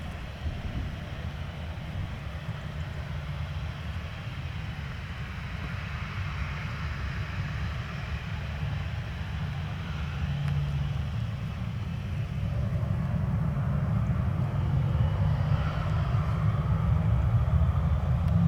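Boeing 737-800's CFM56 jet engines running at taxi power, a steady low rumble with a whine-like haze above it, growing louder over the second half.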